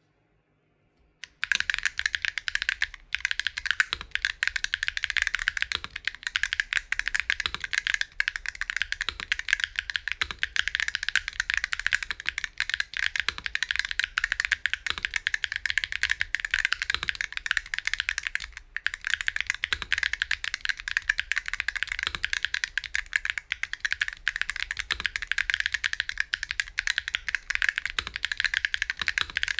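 Continuous fast typing on a custom 60% keyboard (AGS Vella 60 PE) with Geon Raptor HE v2 Hall-effect switches, a carbon-fibre plate, KAP keycaps and no foam. The typing starts about a second in as a dense, even clatter of keystrokes, with a deeper stroke about every second and a half and brief pauses twice.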